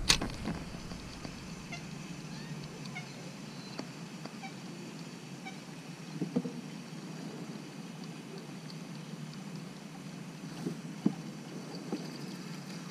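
A few light knocks and clicks in a canoe, scattered over a quiet outdoor background.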